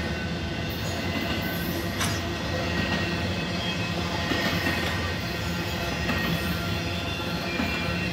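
Double-stack intermodal freight cars rolling past: a steady rumble of steel wheels on rail, with thin high wheel squeal over it and a single clank about two seconds in.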